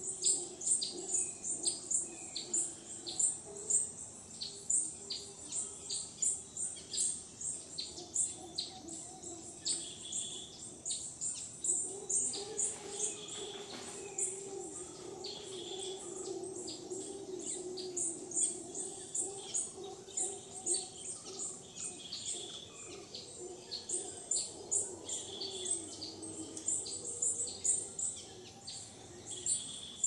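Costa Rican rainforest dawn chorus: birds calling with rapid, evenly repeated high chirps, over a distant, low, wavering roar of howler monkeys that swells about halfway through.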